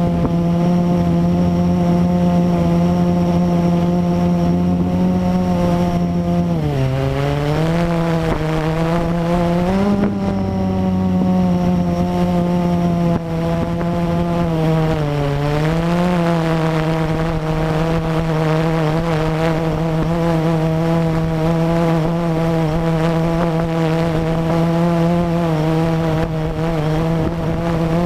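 Blade 350 QX quadcopter's electric motors and propellers humming loudly and steadily, heard close up from the GoPro strapped to the drone. The pitch dips and recovers about a quarter of the way in and again about halfway, with a brief rise in between, as the motor speed changes in flight.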